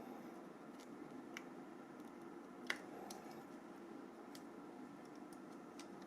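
Faint, scattered clicks and taps of a small tool and plastic parts being handled while a mobile phone is disassembled, with one sharper click about two and a half seconds in, over a low steady hum.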